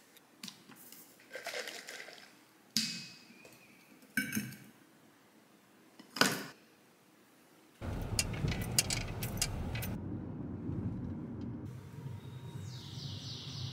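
Stainless steel straw clinking and scraping inside an insulated tumbler as a drink is stirred, in a handful of separate sharp knocks. About eight seconds in it gives way to a steady low rumble of gym room noise with a few light clicks.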